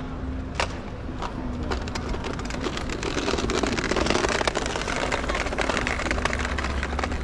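Street ambience with a rapid rolling clatter of wheels on a hard street surface passing by. It swells to its loudest about four seconds in, then eases off.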